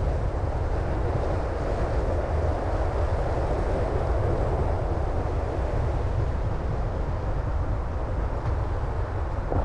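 A car driving, with a steady low rumble of tyre, road and engine noise that holds even throughout.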